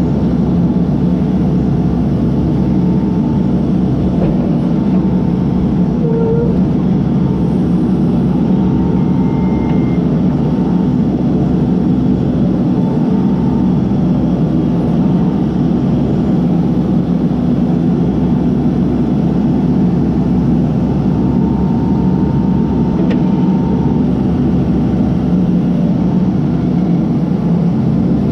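Case backhoe's diesel engine running steadily, a constant drone with faint higher tones coming and going over it.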